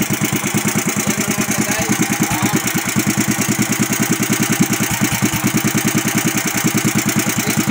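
Yamada VR460 18 hp single-cylinder petrol engine running steadily on test after new parts were fitted, with an even, rapid beat of firing pulses that holds at one speed.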